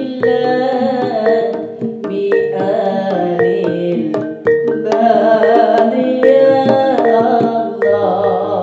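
Javanese jaranan ensemble music: hand drums and struck gong-chime notes under a wavering sung melody.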